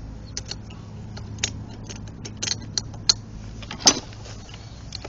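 Irregular sharp metallic clinks of steel head bolts being handled and set into the cylinder head of a small single-cylinder overhead-valve engine, the sharpest clink about four seconds in, over a steady low hum.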